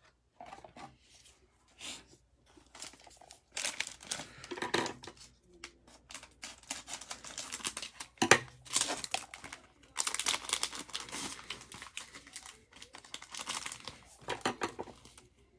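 Plastic wrappers of Mosaic basketball card cello packs crinkling and tearing as gloved hands handle and open them: irregular crackles, with one sharp crack about eight seconds in.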